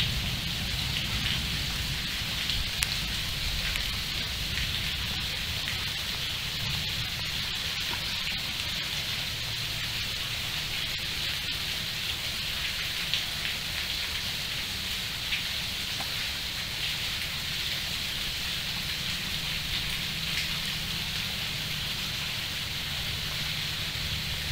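Steady rain falling, an even hiss with a few sharper drop ticks scattered through it.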